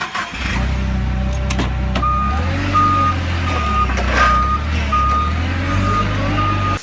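Heavy vehicle's engine running with a reversing alarm beeping at an even rate, about one and a half beeps a second.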